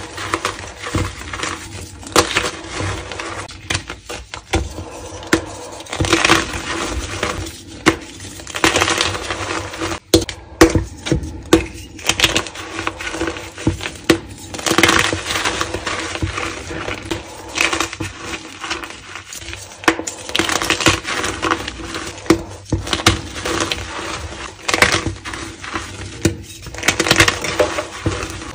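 Hands crushing and crumbling blocks of dyed gym chalk into loose powder: dense crunchy crackling with sharp snaps, swelling and easing as each handful is squeezed.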